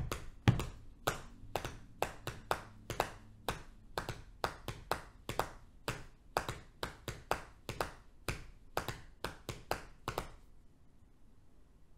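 Hands patting on the thighs in a five-against-four polyrhythm: a run of sharp pats at two interleaved pulses, stopping about ten seconds in.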